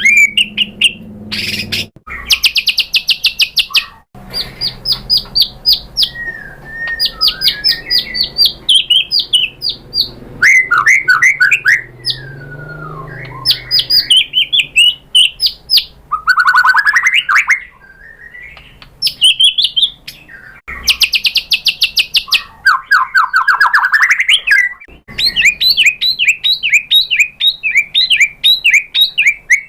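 White-rumped shama (murai batu) singing loudly in fast runs of repeated sharp notes and trills, some sliding down in pitch, breaking off abruptly a few times.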